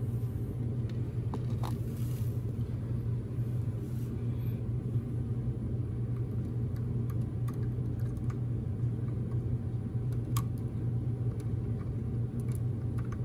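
Steady low hum and rumble of background machinery, with a few faint light clicks scattered through it.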